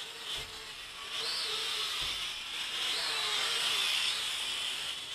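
JJRC H31 quadcopter's motors and propellers whining, the pitch rising and falling as the throttle changes. It gets louder about a second in as the drone flies close.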